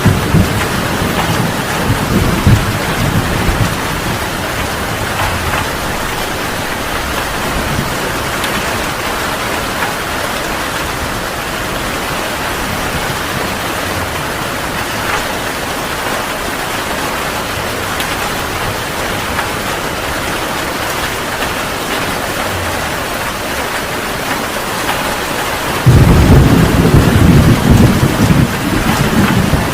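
Heavy rain falling in a steady hiss through a thunderstorm. A low rumble of thunder dies away over the first few seconds, and a loud thunderclap breaks in near the end and rolls on.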